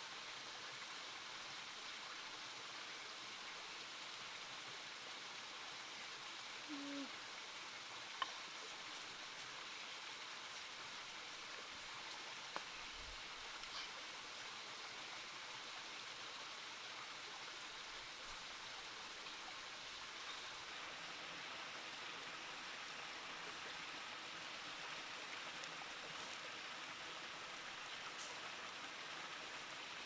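Steady rush of flowing stream water, with a couple of light clicks.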